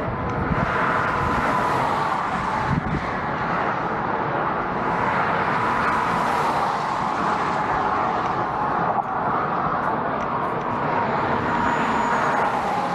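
Steady road traffic noise: a continuous rush of passing vehicles with gentle swells and no single distinct pass.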